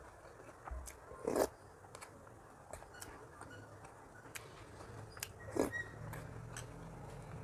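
Close-miked eating sounds: quiet chewing and small mouth clicks, with a metal spoon moving through a steel pan of curry. Two louder brief scraping noises stand out, about a second and a half in and again near the end.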